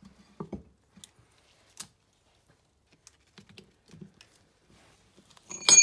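Ring spanner on a very tight crown wheel bolt of an MGB differential carrier: scattered light metal clicks and knocks, then near the end a sharp metallic clank that rings on. The bolt is too tight to undo by hand.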